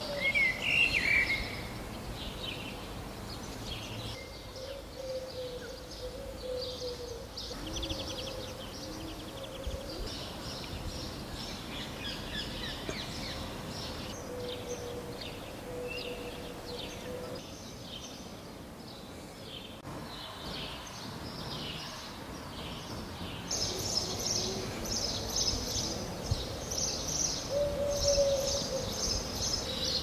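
Small birds chirping and singing, many short calls and trills overlapping over a quiet urban background, with one loud call right at the start and the calling growing busier and louder in the last several seconds.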